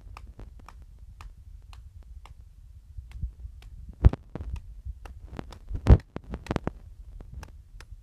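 A fork tapping and prying at the cracked glass screen of a smashed iPad mini, making irregular sharp clicks and taps, with two louder knocks about four and six seconds in, over a low rumble.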